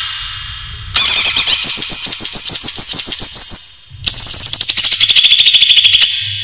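Green leafbird (cucak ijo) song: two rapid runs of loud, sharp repeated high notes, a short pause between them, the second run dropping in pitch partway through.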